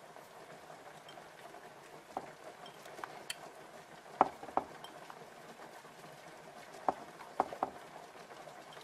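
Scattered light clicks and taps of sliced mushrooms being picked from a bowl and set down in a ceramic baking dish, over a low steady kitchen hum. The clicks come in small groups, a pair about four seconds in and a trio near the end the loudest.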